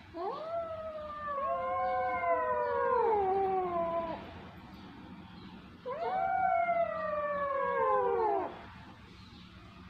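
Kittens meowing: long, drawn-out cries that rise and then slowly fall in pitch. Two overlap over the first four seconds, and another comes about six seconds in.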